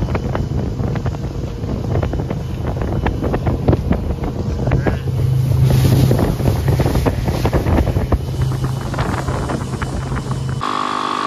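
Speedboat engine running steadily under way over choppy water, with wind rushing and buffeting the microphone. The boat sound cuts off suddenly near the end.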